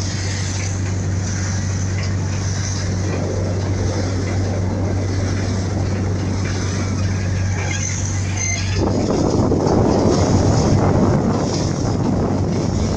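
River launch's engine running with a steady low hum over water rushing past the hull. About nine seconds in, the hum drops out and louder wind noise on the microphone takes over.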